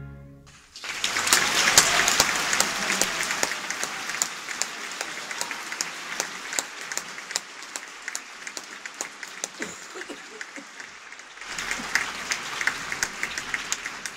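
An orchestra's last chord fades out, and about a second in a theatre audience bursts into applause. The clapping is loudest early, thins out, then swells again near the end.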